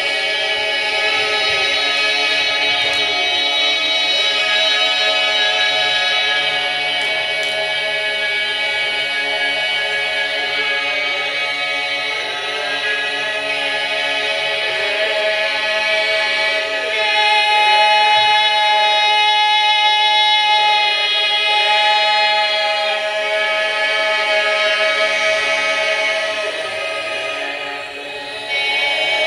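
A chorus singing long held notes together in a dense chord, with some voices sliding between pitches. It swells louder about halfway through and dips briefly just before the end.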